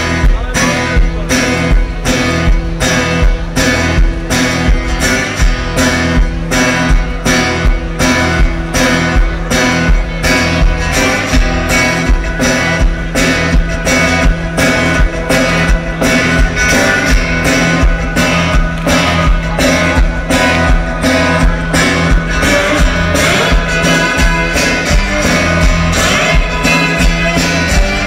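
Live one-man-band rock music played loud through a festival PA: guitar over a steady, driving drum beat, heard from within the crowd.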